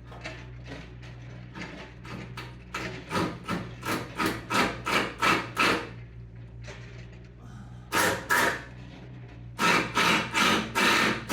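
Runs of sharp knocks, about three a second, like hammer blows, over a steady low hum.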